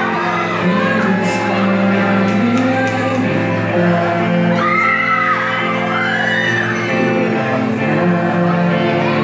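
Pop-rock band playing live through a PA, with guitars, bass and drums and a singing voice carrying the melody, heard in a large hall.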